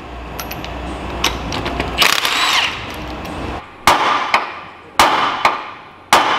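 Cordless impact wrench run in short bursts on a car's wheel nuts, then several sharp knocks, three louder ones about a second apart.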